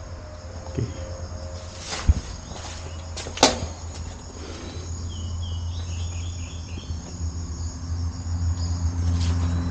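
A steady high-pitched chorus of insects shrilling over a low rumble, with two sharp knocks about two and three and a half seconds in and a short run of chirps about five seconds in.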